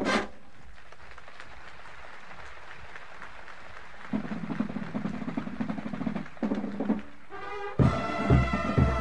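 Old drum and bugle corps recording: a loud brass chord cuts off right at the start, leaving a few seconds of recording hiss and a faint low sustained tone, then the brass line and drums come back in loud near the end.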